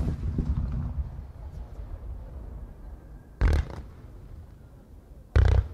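Aerial firework shells bursting. A loud boom at the start rolls and echoes for about a second, followed by two shorter, sharp bursts about three and a half and five and a half seconds in.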